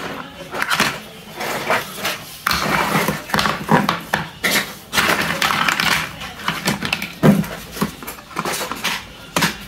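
Hard plastic toy doctor-kit pieces being handled on a table, clicking and clattering against each other with irregular rustling, and a few heavier knocks.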